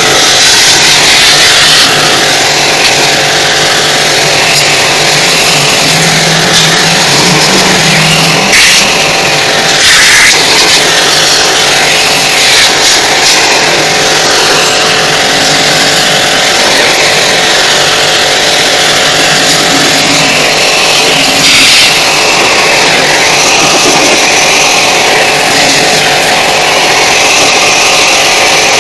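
High-pressure washer running steadily, its water jet hissing and spattering against the finned evaporator coil of an air-conditioner indoor unit during a deep clean, with a few brief louder swells.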